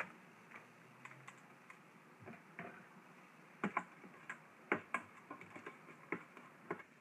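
A stirring utensil tapping and clicking against the stainless steel inner pot of an Instant Pot while bay leaves and cardamom pods are stirred in oil on sauté. The clicks are light and irregular, with the sharpest a little past halfway.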